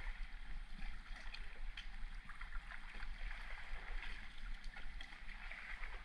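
River water rushing and gurgling around a drifting raft, a steady hiss with scattered small ticks and splashes.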